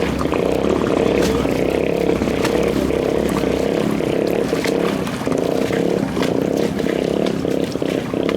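Racing boat engine running loud and hard, its note uneven and pulsing.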